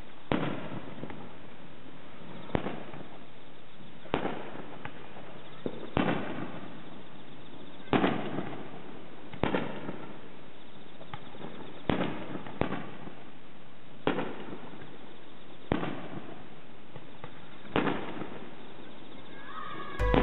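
Aerial fireworks shells bursting overhead: about a dozen sharp bangs, one every one to two seconds, each trailing off in an echo.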